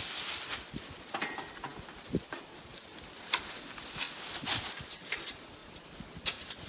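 Footsteps crunching and rustling through dry leaves and twigs, in an uneven series of short crunches.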